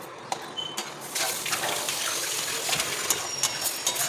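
Green peas and masala sizzling in a hot pan, the hiss swelling up about a second in, with scattered clicks of a spoon against the pan.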